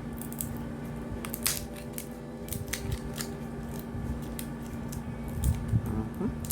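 Irregular small clicks and snips of a micro SD card's plastic packaging being opened and handled by hand, over a steady low hum.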